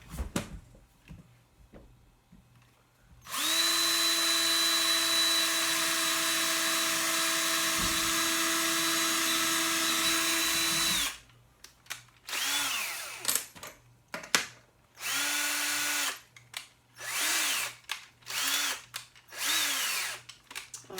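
Power drill running with a drill bit at the marked wall stud. It runs steadily for about seven seconds, then comes in about six short bursts that each wind up and back down.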